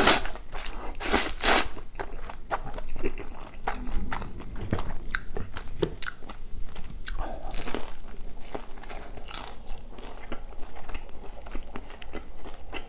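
A person slurping a mouthful of noodles, with loud bursts in the first second and a half, then chewing with many small clicks and crunches close to the microphone.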